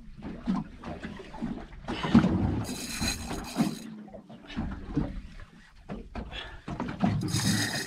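Small fishing boat on open water while fish are being fought: water against the hull with scattered knocks and rumbles, and two short bursts of high hiss, a second or so each, about a third of the way in and near the end.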